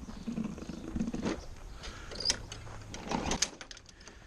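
Briggs & Stratton 6.75 hp mower engine being pull-started: the recoil starter clatters and the engine turns over in short spurts without keeping running. The blade is off, so there is no flywheel weight to keep it spinning.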